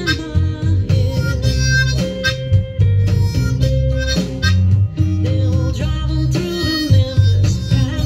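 Blues harmonica played into a hand-cupped vocal microphone, held notes with a few bent, sliding pitches, over accompanying music with a steady bass line.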